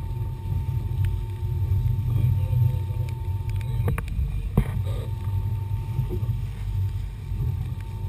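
Twin outboard motors running as the boat churns through the water, under heavy wind buffeting on the microphone. There are two sharp knocks about halfway through.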